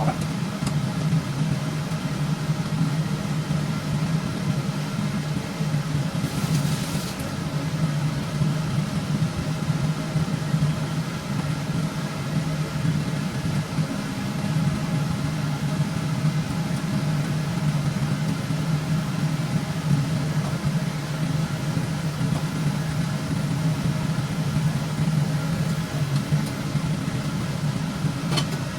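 Kitchen range hood fan running with a steady, unchanging hum, and a brief hiss about seven seconds in.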